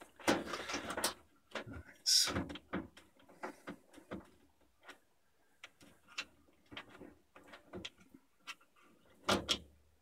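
Plastic wire connectors and the plastic housing of a washing machine's control circuit board being handled: irregular clicks, knocks and rustling, with louder clatters near the start, about two seconds in and near the end.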